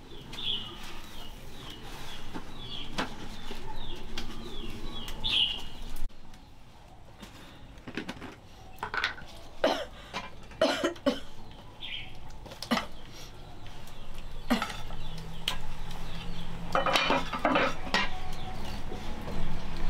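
Kitchen clatter of a pan and utensils, with several sharp knocks in the middle. Chickens cluck and peep throughout, the high peeps mostly in the first few seconds.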